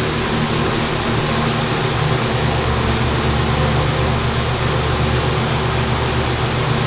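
Microwave oven running: a steady low hum with fan noise.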